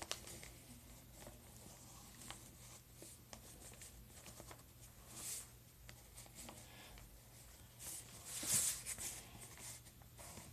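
Felt-tip marker drawing on paper: faint scratchy strokes and light taps, with a louder scratching rustle about eight seconds in.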